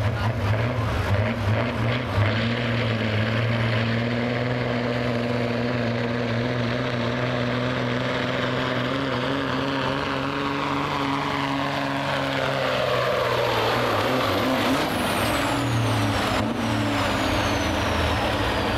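Diesel semi truck engine under full load, pulling a weight-transfer sled. The engine note holds steady, then drops in pitch as the truck bogs down under the sled, and near the end a high whistle falls away.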